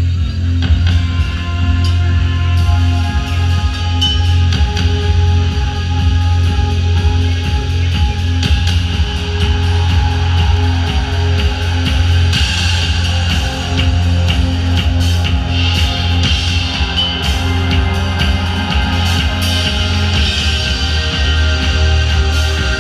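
Loud music with a heavy, steady bass and drums.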